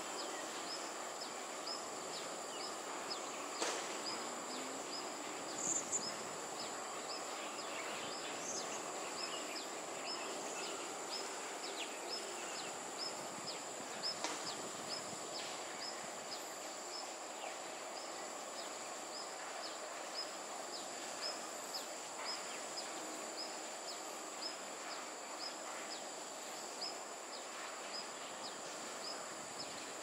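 Insects: a steady high-pitched drone with a short high chirp repeating about twice a second, over a soft hiss of background noise. A couple of faint clicks a few seconds in.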